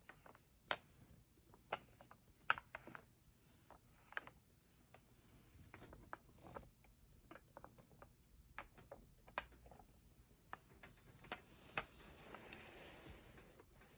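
Sticky lint roller rolled over a cat's fur: faint, irregular clicks, with a soft rustle near the end.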